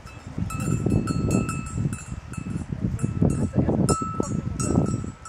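Cowbell on a grazing cow clanking irregularly, about two or three strokes a second, each ringing briefly. Under it a loud, uneven low rumble of wind on the microphone.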